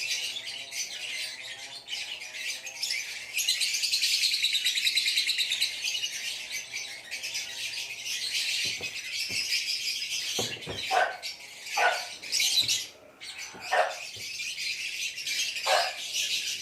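A flock of caged lovebirds chattering with continuous shrill chirps. Several sharper, louder calls stand out in the second half.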